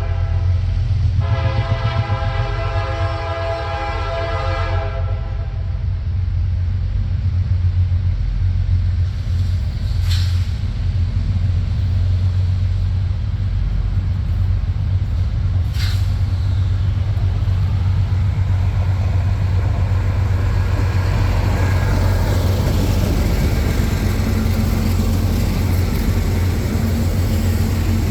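Diesel locomotive horn sounding a short blast and then a longer one that ends about five seconds in, followed by the heavy, steady rumble of the locomotive's diesel engine, growing louder towards the end as the train draws near.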